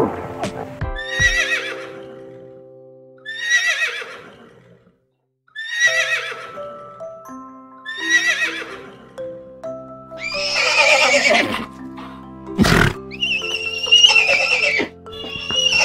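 Horse whinnying over and over, about six neighs, the later ones longer and louder, over background music of held notes. There is one sharp knock about 13 seconds in.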